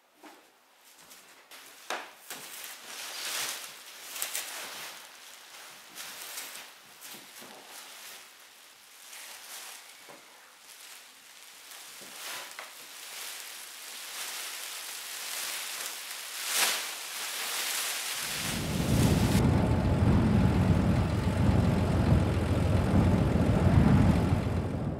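Clear plastic sheeting crinkling and crackling as a person presses and moves against it. About eighteen seconds in this gives way abruptly to a loud, low rumble.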